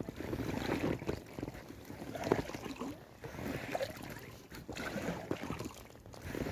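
Double-bladed paddle strokes from an inflatable kayak, each dip and pull stirring a swell of water noise in calm water, about five strokes in a steady rhythm.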